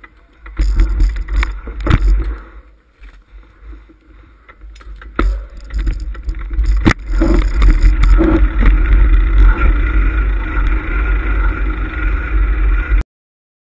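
Wind rumble and knocking from rough ground on a handlebar-mounted action camera as a mountain bike rides a stony dirt lane, with scattered sharp clicks. The sound cuts off suddenly near the end.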